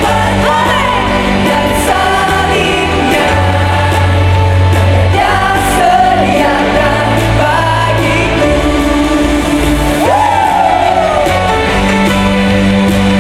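Worship band playing a contemporary praise song with singing over held bass notes; a long falling glide in pitch comes about ten seconds in.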